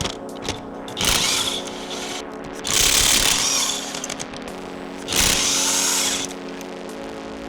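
A power tool run in three bursts of about one second each, as parts are being taken off a vehicle, over steady background music.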